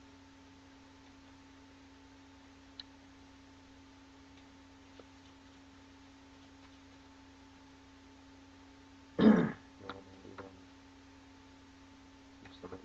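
A steady low electrical hum with a couple of faint clicks from playing cards being handled, then a person clears their throat loudly about nine seconds in, with two quieter follow-ups just after.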